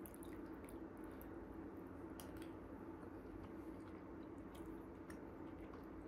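Faint eating sounds: a metal spoon lifting dumplings and soup from a ceramic bowl, with scattered small clicks and soft wet sounds over a low steady room hum.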